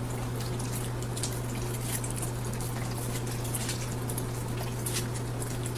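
Boxer dog chewing and slurping a watermelon slice: irregular wet smacking and crunching clicks. A steady low hum runs underneath.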